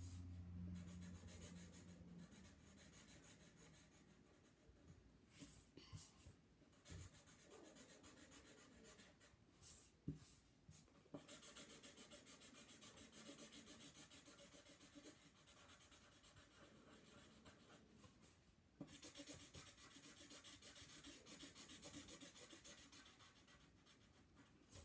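Sharpie marker scribbling fast back and forth on paper, colouring in a drawing. A few scattered strokes come first. About halfway in it settles into a long run of rapid, steady scribbling, broken once by a short pause.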